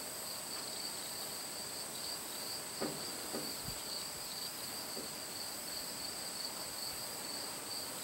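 Steady high-pitched insect chorus: one shrill chirring voice that pulses slightly, with a higher, even hum above it. A few faint taps and a soft thump come around the middle.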